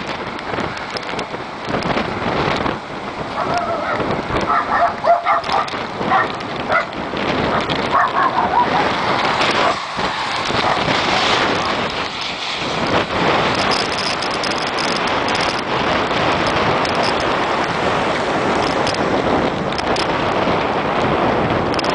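Steady rain and wind noise on the microphone during a tropical storm, with cars passing on a wet highway.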